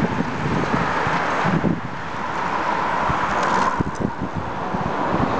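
A pack of racing bicycles speeding past close by, a whirring hiss of tyres and chains that thins out after about four seconds as the last riders go by. Wind rumbles on the microphone.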